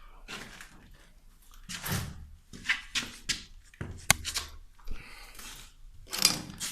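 Irregular clatter and scraping of parts and tools being handled on a boiler, with a sharp click about four seconds in.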